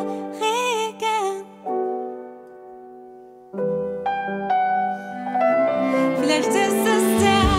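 Ballad with piano and cello accompaniment: a sung phrase ends about a second in, a held piano chord fades away, and then the arrangement comes back in fuller and louder with low notes at about the halfway point, a voice rising again near the end.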